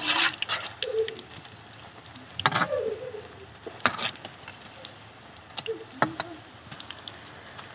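Pakoras sizzling in hot oil in an iron karahi as they are turned, with a metal slotted spoon clinking and scraping against the pan a few times.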